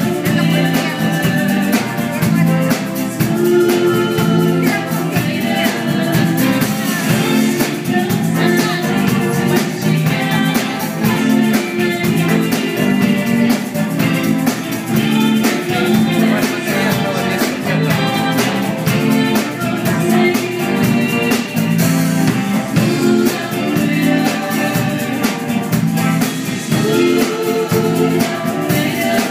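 Live pop band playing a song: a singer's voice over drum kit and electric bass guitar, with a steady beat.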